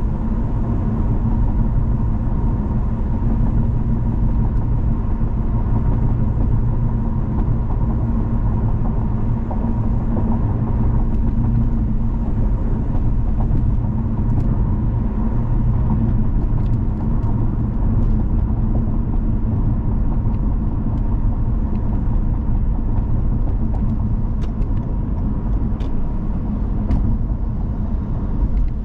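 Steady road noise of a car driving at freeway speed: a continuous low rumble of tyres and engine with a faint steady hum.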